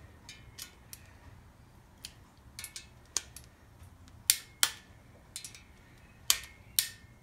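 Small torque wrench clicking as the piston cooling jet bolts in a cast-iron engine block are tightened to torque. There are scattered light clicks with uneven gaps, and sharper, louder pairs of clicks about four seconds in and again about six seconds in.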